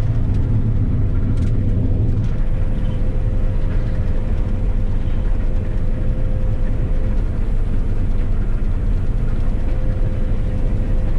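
Claas Lexion 670 combine harvester running: a steady low rumble with a thin, even whine held above it.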